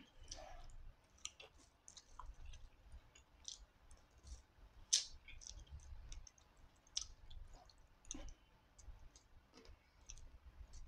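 Quiet eating sounds: scattered wet mouth clicks and smacks of chewing, with one louder smack about five seconds in.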